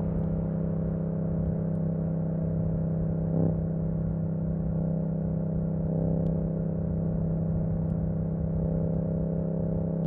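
Yamaha MT-07's parallel-twin engine through an Akrapovic exhaust with the dB killer removed, running at a steady, unchanging pitch, with a brief swell about three and a half seconds in.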